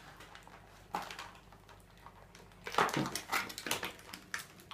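Clear plastic toy packaging crinkling and rustling as it is handled, with small plastic pieces clicking against each other and the table. The rustling is busiest from about three seconds in.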